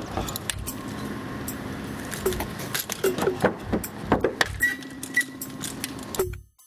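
Bicycle clattering on pavement as it is hopped and balanced through street tricks: metal parts rattle and chink, with many sharp knocks, the loudest a little past the middle. The sound cuts off suddenly just before the end.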